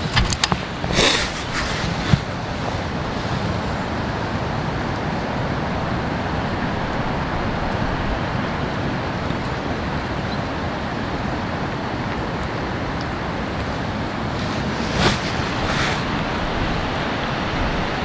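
Steady wind noise buffeting the microphone, with a few brief handling clicks in the first couple of seconds and again about fifteen seconds in.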